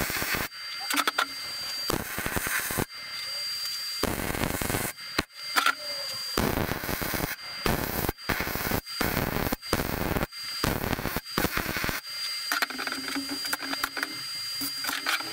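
MIG welding arc crackling on mild steel in a string of short runs, each a fraction of a second to about a second and a half long, with brief pauses between as the torch stops and restarts. The welding stops about three seconds before the end.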